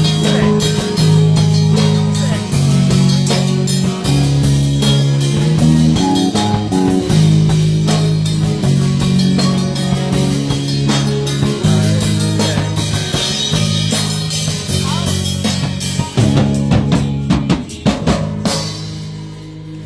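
Live band playing, with a drum kit hitting hard over sustained low bass notes. It closes with a rapid flurry of drum hits that dies away near the end.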